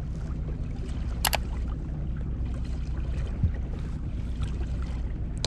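Pontoon boat's outboard motor running steadily at trolling speed, a low hum, with one sharp click about a second in.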